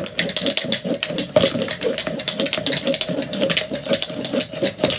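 Casino dice clattering inside a dice-stacking cup as the cup is swept over a hardwood floor, scooping them up one by one and spinning them into a stack; a rapid, continuous rattle of clicks.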